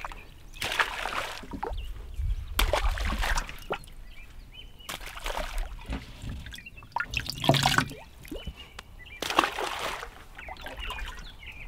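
Water sloshing in a cooler as live bass are grabbed out by hand, and splashing as they are dropped into the pond's shallows, in about five separate splashes.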